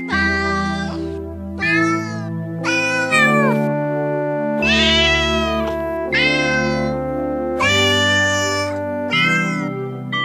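Music whose melody is sung by sampled cat meows, about seven meows in a row, each rising then falling in pitch, over a steady synthesized backing of held chords and bass notes.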